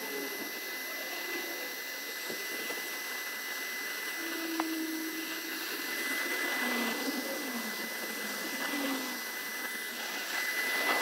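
Bee vacuum running steadily, with a steady high whine, as its hose sucks bees out of an irrigation control box.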